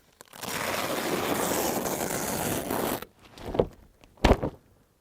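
A continuous rasp of the cotton tent's window skin being handled, lasting about two and a half seconds, followed by two short scrapes near the end.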